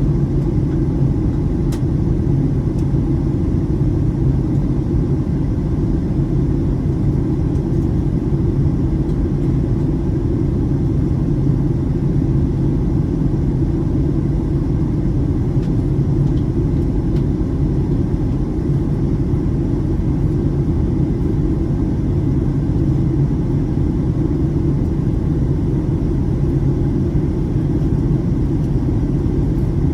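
Steady low rumble of airliner cabin noise, jet engines and airflow heard from inside the passenger cabin while the plane descends toward landing.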